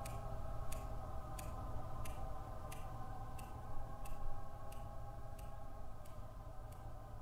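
Even, clock-like ticking, about three ticks every two seconds, over a steady low drone of several held tones. The last tick falls near the end and the drone carries on.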